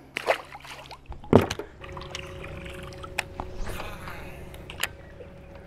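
Lake water splashing and dripping at the side of a boat, with a steady hum that starts about two seconds in.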